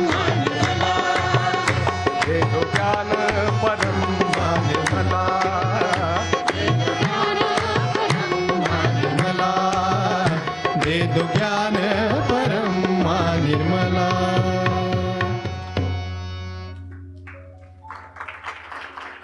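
Group singing a Hindi devotional song (bhajan) with percussion accompaniment. About 16 seconds in the song ends: the drumming stops and held notes fade out.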